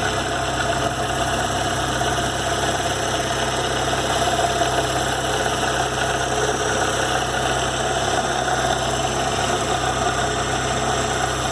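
Volkswagen Gol G4's 1.6 AP engine idling steadily, with a steady tone over the idle. This is the strange noise from the front of the engine that the owner suspects is a worn bearing, perhaps the water pump's.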